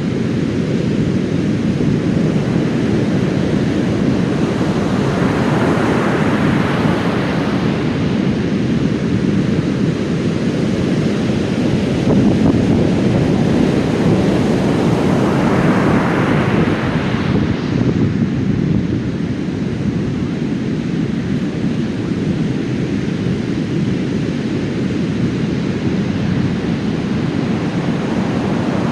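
Heavy surf after a typhoon: large waves crashing and rushing up the beach in a continuous heavy roar, with two bigger breakers standing out, one around five seconds in and one around fifteen seconds in, and wind buffeting the microphone.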